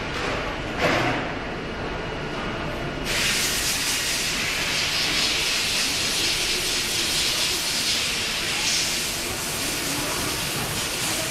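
A short hiss about a second in. Then a loud steady hiss starts suddenly about three seconds in and keeps on, from the robot-loaded Brother TC-32B CNC tapping cell.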